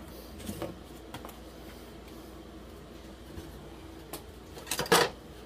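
Kitchen handling noises: a few light knocks, then a short, louder scraping rustle near the end, over a faint steady hum.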